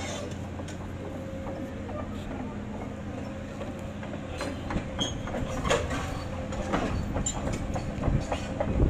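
A steady low mechanical rumble with a hum, joined about halfway through by scattered sharp clanks and knocks that grow louder toward the end.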